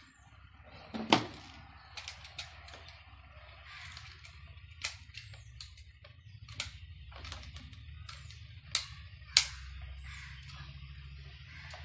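Scattered sharp clicks and taps of a screwdriver working the terminal screws of a small plastic timer module as wires are fitted, about ten in all at irregular spacing over a faint low hum. The loudest click comes about a second in, with two more strong ones in the last few seconds.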